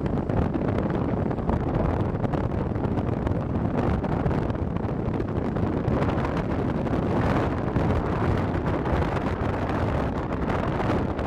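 Wind buffeting the microphone of a moving car, a steady low rumbling rush over road and engine noise.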